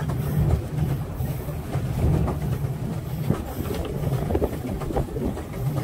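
Swan pedal boat being pedalled: a steady low churning rumble from the pedal crank and paddle wheel, pulsing about once a second, with small clicks and clatter from the mechanism.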